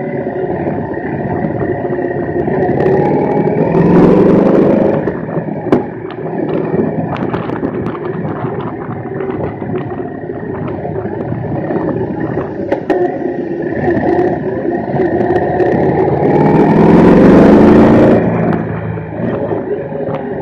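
Large-displacement motorcycle engine running under way, revved up twice: a rise in pitch about four seconds in and a longer, louder one near the end that cuts off sharply.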